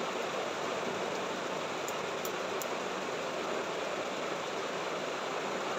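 Steady, even background hiss of room noise, with three faint high ticks a little after two seconds in.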